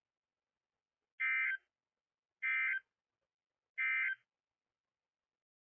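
Emergency Alert System end-of-message signal on NOAA Weather Radio: three identical short bursts of SAME digital data tones, about a second apart, marking the end of the severe thunderstorm warning broadcast.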